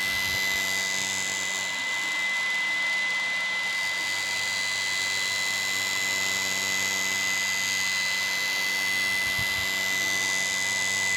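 Electric fan running with a steady whirring drone, a constant high whine over a lower motor hum: the 'snoring' (ngorok) noise of a faulty fan.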